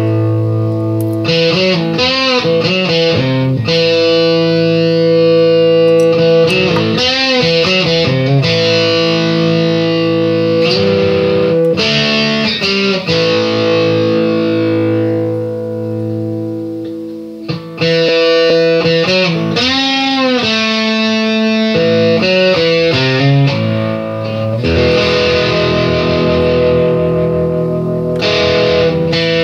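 Background music: an electric guitar with effects and distortion playing sustained chords and notes that waver in pitch. A chord dies away about halfway through, and a new passage starts near the end.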